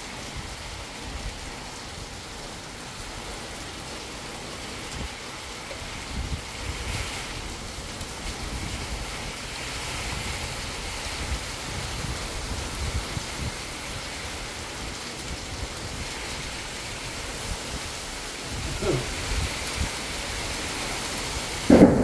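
Steady rain falling, a constant hiss. Right at the end a loud clap of thunder breaks in.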